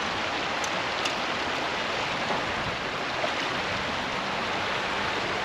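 Shallow creek water rushing over a stony riffle of small rapids, a steady, even rush.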